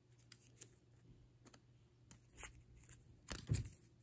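Faint rustling and small clicks of a plush toy being handled, with a soft thump about three and a half seconds in.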